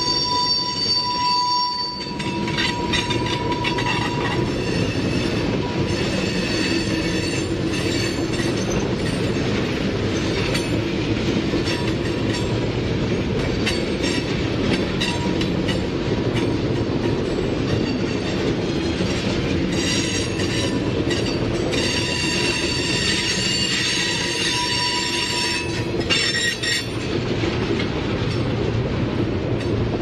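Freight train of tank cars rolling steadily past, with a continuous rumble of wheels on rail. A high ringing wheel squeal is strongest at the start and comes back about two-thirds of the way through.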